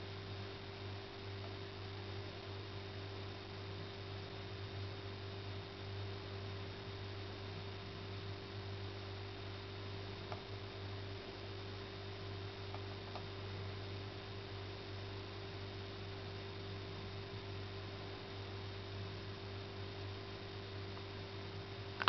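Steady low hum with an even hiss over it, and a few faint ticks around the middle.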